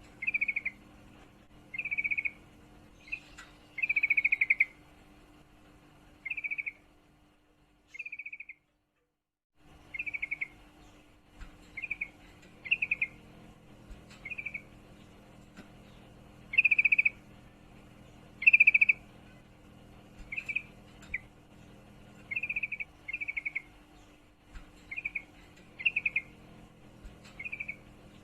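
Female yellow-vented bulbul calling in breeding condition: short, rapid chattering trills, about twenty of them, repeated at irregular intervals. It is the call used to draw males and to set a quiet male singing. There is a faint steady hum underneath and a brief gap of silence about nine seconds in.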